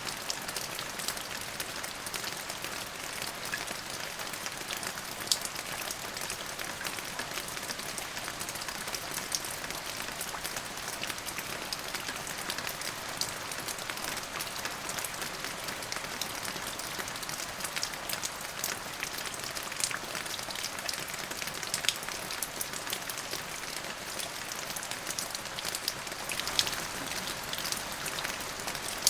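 Steady rain falling on a surface, a continuous patter with many distinct drop ticks scattered through it.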